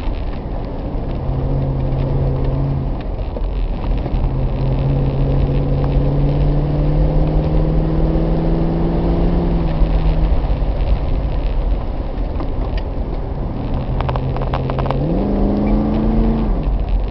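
Triumph Stag's V8 engine running as the car is driven, heard from inside the cabin over steady road and tyre rumble. The engine note climbs slowly for several seconds as it pulls, and near the end it rises quickly and then drops away.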